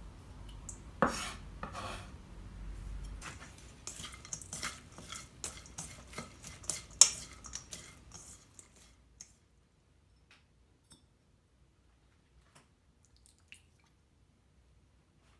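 A kitchen knife scraping minced ginger off its blade into a stainless steel bowl of sliced onion, with clinks and knocks of metal on the bowl and two sharp loud hits. After about eight seconds this stops and only a few faint clicks follow, a spoon touching a ceramic bowl as sugar is measured.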